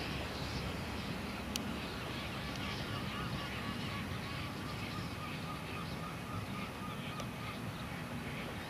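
A steady outdoor rumble of wind on the microphone. Through the middle, a run of faint, short honking bird calls, like distant geese.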